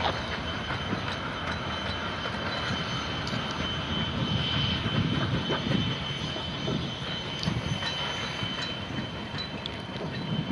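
Queensland Rail C17 class 4-8-0 steam locomotive running light at low speed: a steady rumble and hiss with a faint, steady high tone over it.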